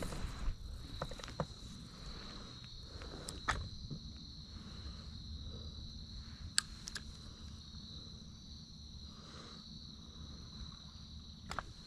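Insects calling in a steady high-pitched chorus, with a few sharp clicks scattered through.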